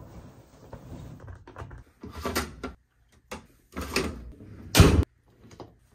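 Clothes rustling as they are pushed into a top-loading washing machine, with several short clunks from the machine's lid and dispenser, the loudest near the end.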